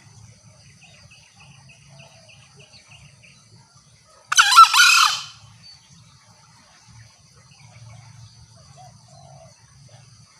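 A green junglefowl crows once, a short, loud, clear call lasting about a second, about four seconds in, over a steady chorus of insects.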